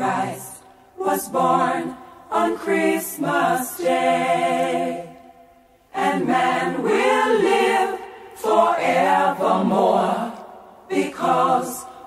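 Voices singing a Christmas song as background music, phrase by phrase, with a short pause about five seconds in.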